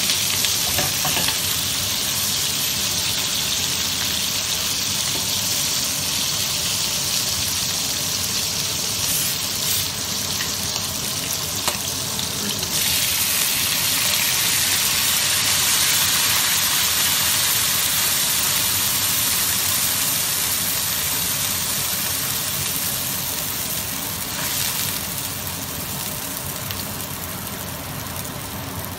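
Pork ribs boiling hard in cola in a wok over high heat, a steady bubbling sizzle; it changes abruptly about halfway and grows a little quieter near the end.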